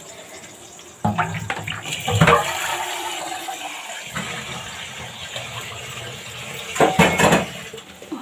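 Water running from a tap and splashing as a vessel fills, with pots and dishes knocking about two seconds in and again near the end.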